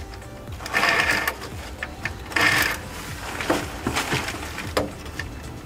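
Ratchet on an 8 mm socket spinning out a bolt, in two short bursts of rapid clicking about one second and two and a half seconds in, with scattered single clicks and knocks between.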